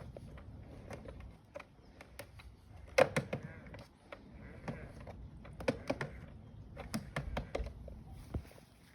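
Scattered clicks and knocks from a Dolphin Nautilus CC Supreme robotic pool cleaner being handled upside down, its brushes and tracks turned by hand; the loudest knock comes about three seconds in, with a run of sharper clicks later on.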